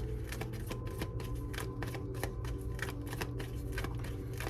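Tarot cards being shuffled and handled, giving a run of quick, irregular card clicks and slaps. Soft background music with long held tones plays underneath.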